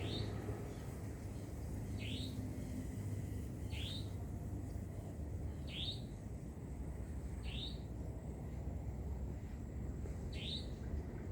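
A bird repeating a short, sharp upward-sweeping chirp six times, about once every two seconds, over a steady low rumble.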